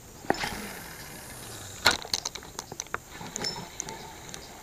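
Fishing rod and reel in a cast and retrieve: a click, line hissing out for about a second and a half, a sharp snap, then irregular clicking and ticking of the reel as the lure is wound in.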